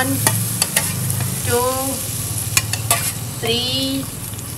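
Chopped onions sizzling in hot oil in a pressure cooker, with sharp clicks of a spoon against the pot as oil is spooned in and stirred. A voice sounds briefly twice.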